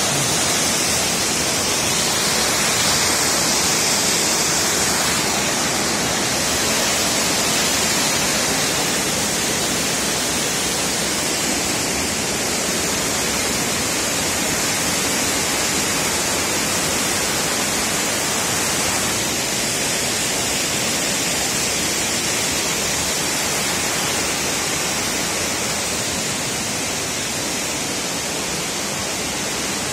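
Elephant Falls waterfall: white water pouring over the rocks in a steady rushing.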